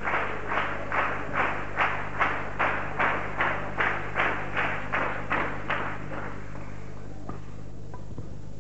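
Spectators clapping in unison, about two and a half claps a second, dying away after about six seconds. A single sharp knock follows about seven seconds in.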